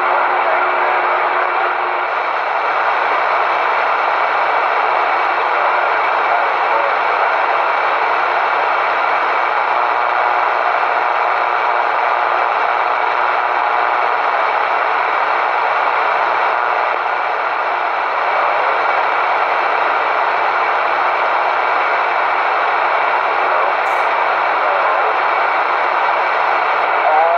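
CB radio receiver hissing with static, squelch open, the steady rush of an empty channel with faint warbling traces of distant signals in it.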